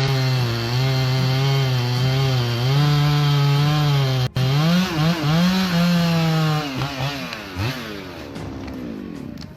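Chainsaw engine running at high revs with a steady pitch for about four seconds, then revved up and down several times before its pitch falls away near the end.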